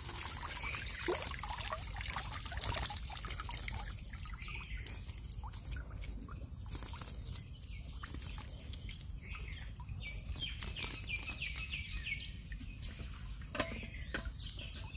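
Water splashing and dripping as a woven bamboo shrimp trap is lifted out of a shallow canal and drained, busiest in the first few seconds and then thinning to scattered drips. Birds chirp now and then, mostly in the second half.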